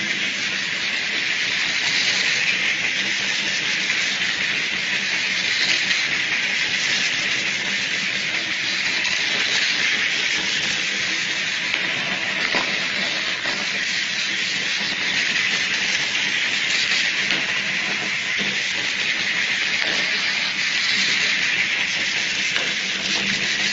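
Miniature line-following robots' tiny drive motors and gears whirring steadily as they run around the track, a continuous high hiss-like whir with a few faint ticks.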